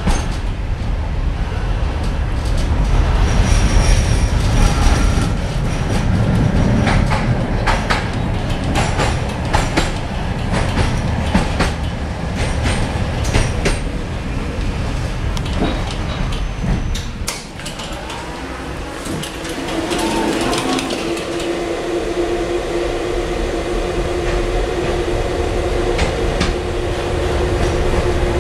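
Tatra T4D tram and B4D trailer running over street track, heard from inside the car: a low rumble with frequent clicks and knocks from the wheels on the rails. About two-thirds of the way through the rumble drops, and then a steady whine comes in and holds.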